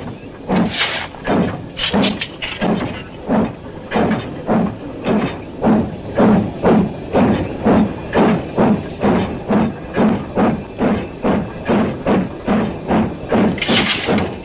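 Japanese National Railways 9600-class steam locomotive working its train through snow, its exhaust chuffing in an even beat of about two a second that settles and quickens slightly after a few seconds. Short bursts of steam hiss come about a second in and again near the end.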